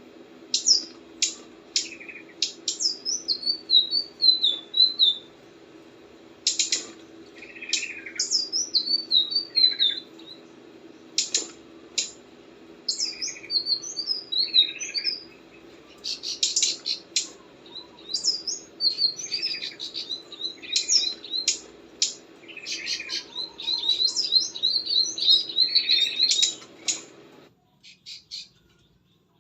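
Songbird chirping and singing in quick, repeated falling phrases of high notes, over a steady low hum; both stop abruptly near the end.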